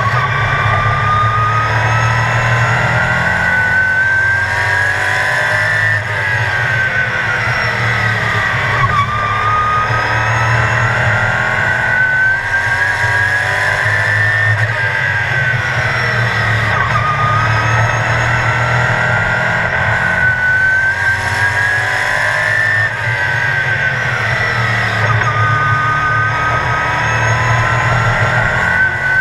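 Sportsman stock car's engine heard from inside the cockpit, its note rising in pitch down each straight and dropping sharply as the driver lifts off for the turns, lap after lap.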